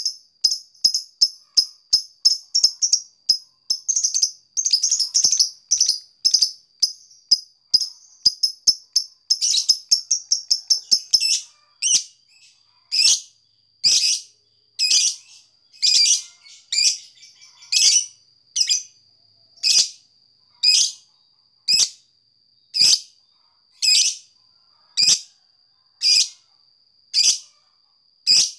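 Lovebird giving its 'ngetik' song, a fast run of sharp, high ticking chirps, several a second. About a third of the way in it slows to single harsh chirps roughly once a second, over a faint steady high tone.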